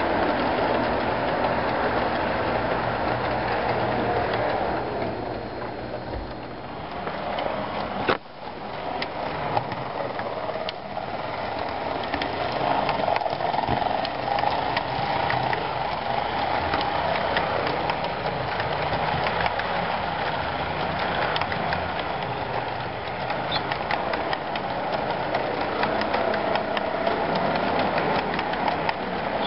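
HO scale model freight train running past on the track: the locomotive's motor and wheel noise as a steady rumble, with light clicking and a low diesel engine drone from its sound decoder. A single sharp knock about eight seconds in.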